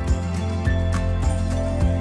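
Background music: sustained chords over a steady, regular beat.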